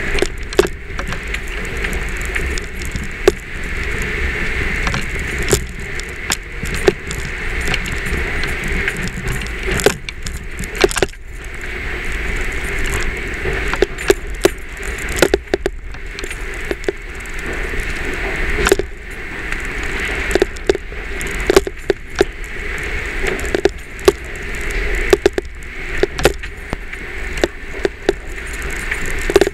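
Steady Jeep engine and cabin noise from inside the vehicle, with frequent irregular, sharp chattering taps of a camera knocking against the front windshield.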